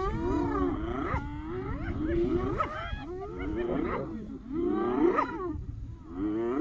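A pack of spotted hyenas calling over one another as they mob a lion: overlapping low groaning calls and rising whooping cries, several a second, with wind rumbling on the microphone.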